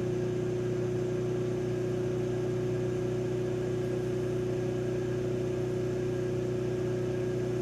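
Homemade generator test rig with a magnet rotor fitted with ferrite rings, running at a steady speed: an even, unchanging hum with one strong steady tone over lower ones.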